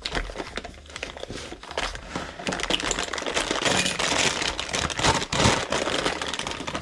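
Plastic bag of pecans crinkling continuously as it is handled, with a faint electrical hum underneath.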